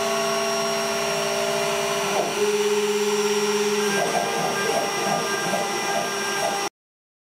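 CNC router's 65 mm spindle running at speed with a steady high whine, while the bit cuts the finishing pass of a 3D carve in hardwood. Under it, the stepper motors driving the axes hum, their pitch shifting about two seconds in and again at four seconds as the moves change. The sound cuts off abruptly about a second before the end.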